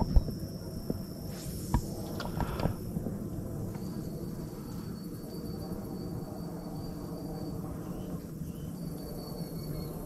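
Outdoor creek ambience: an insect's thin, steady high-pitched trill that breaks off and resumes, over a low steady rumble. A few sharp clicks in the first three seconds.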